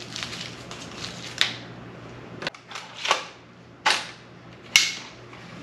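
AA batteries being popped out of their plastic packaging: about five sharp plastic snaps and clicks, unevenly spaced.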